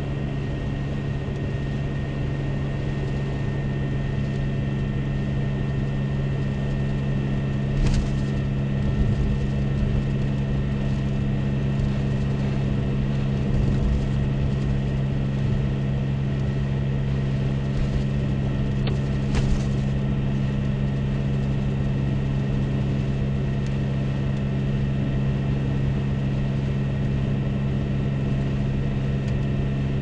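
Steady drone of a car's engine and tyres on a snow-covered road, heard from inside the cabin, with a low hum held at an even pitch. Two brief knocks come about eight and nineteen seconds in.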